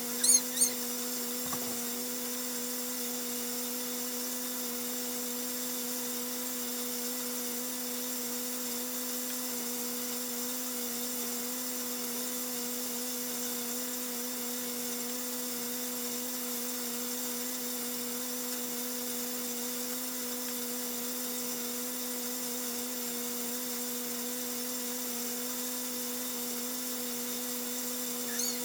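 A steady, even electrical-sounding hum, with two brief, loud high chirps about half a second in.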